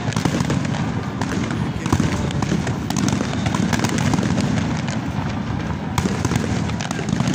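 Aerial fireworks display bursting continuously: a dense rumble of booms with crackling throughout, and sharper cracks about a second in and again near the end.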